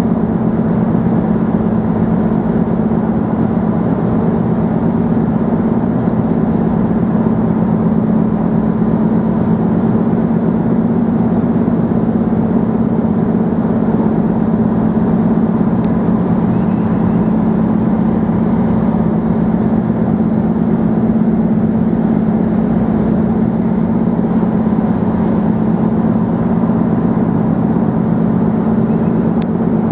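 Engine drone running steadily, a constant low hum with a rumble under it that does not change in pitch or level.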